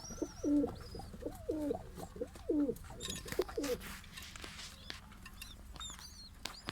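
Domestic pigeons cooing: a run of low, rolling coos that stops about four seconds in, with faint high chirps and a few sharp clicks after.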